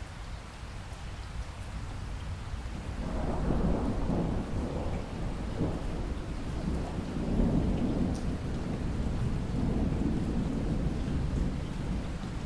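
Steady rain with a long rolling rumble of thunder that builds about three seconds in and keeps rumbling to the end.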